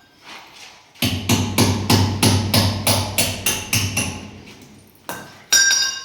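Hammer blows on metal, about three a second in a steady run that fades, then two harder blows near the end, the last one ringing.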